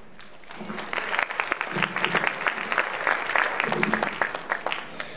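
Audience applauding: dense clapping that starts about half a second in and dies away near the end, with a few voices mixed in.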